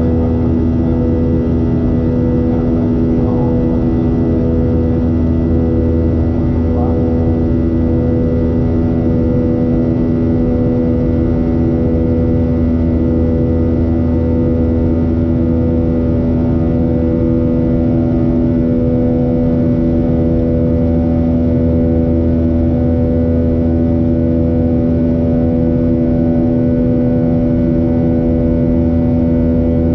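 Boeing 737-800's CFM56-7B turbofan at climb power, heard from a cabin seat near the engine: a steady drone of several layered tones over a low rumble, the CFM56 'buzzsaw' sound.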